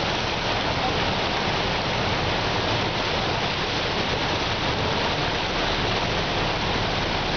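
Floodwater churned up by a city bus driving through a flooded street, surging and splashing alongside it in a steady rush.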